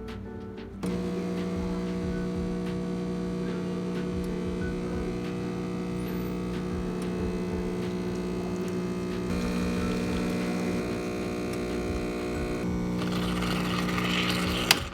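Espresso machine running with a steady electric hum that starts about a second in. A hiss joins near the end, and it stops with a sharp click.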